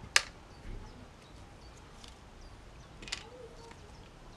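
A single sharp click just after the start, then faint handling noise as strips of elastic are handled by a sewing machine, with a fainter click about three seconds in.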